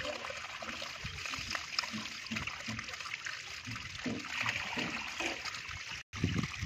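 Water trickling and running steadily through a gap in a mud bank into a woven basket fish trap, with a brief dropout near the end.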